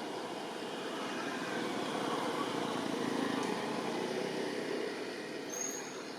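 A road vehicle passing: engine and road noise that swells about two to three seconds in and then fades. A short high chirp sounds near the end.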